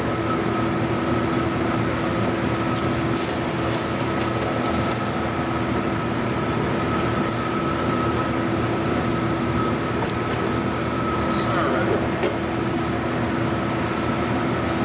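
A steady machine hum holding a constant low tone and a higher one, with a few faint clicks about three to five seconds in.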